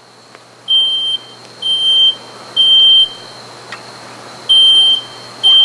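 Smoke alarm set off by smoke, sounding its temporal-three evacuation pattern: high-pitched beeps about half a second long, three in a row, a pause, then two more near the end.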